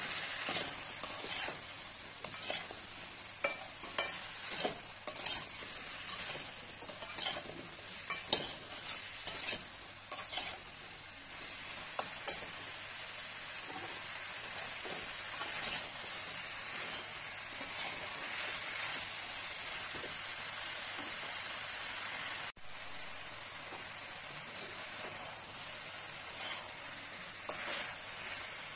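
Potato sticks, tomato and onion sizzling steadily in an aluminium kadai while a metal spatula stirs them, scraping and clinking against the pan. The stirring clicks come thick in the first half and grow sparse later.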